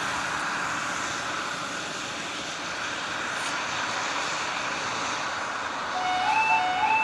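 Steady hiss. About six seconds in, a UK level crossing's yodel alarm starts: a repeating two-tone rising warble that sounds as the amber lights come on, the start of the barrier-lowering sequence.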